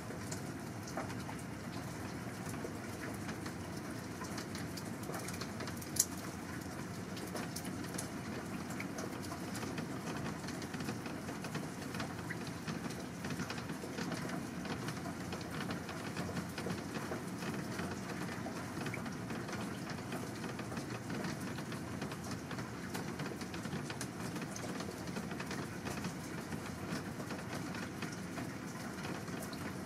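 Steady rushing water noise with scattered small ticks, and one sharp click about six seconds in.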